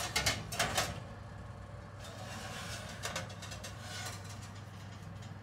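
A metal roasting pan, carrying a metal baking mould, slid out of an oven along the oven rack: a brief scraping clatter in the first second, then a steady low hum.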